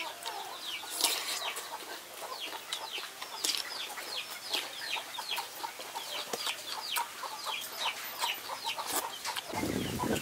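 Chickens peeping nearby: a steady stream of short, high, falling peeps, several a second, with a few crunching bites of raw cucumber in between. A louder rustle near the end.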